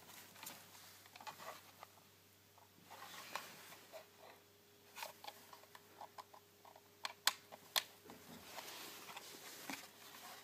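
Faint scattered clicks and rustles of cables and a power plug being handled at a MoCA adapter, with two sharper clicks a little past halfway.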